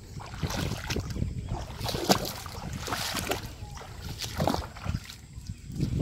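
Feet wading through shallow, muddy paddy-field water, each step a slosh and splash, about one a second.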